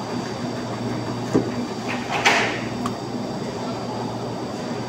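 Butcher's knife slicing through beef on a cutting board: a light knock on the board, then a short scraping swish a little past two seconds in. All of it is over a steady mechanical hum with a faint high whine.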